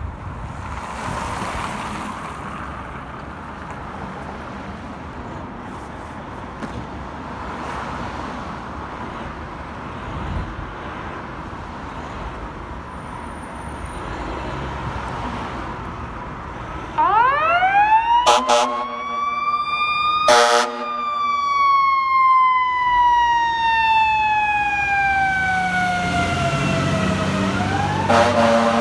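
Steady traffic and road noise for the first part. About two-thirds of the way in, a fire truck's siren winds up in a fast-rising wail and then slides slowly down in pitch, rising again near the end. Short blasts of a deep air horn come twice around the start of the siren, once at its peak and once more near the end.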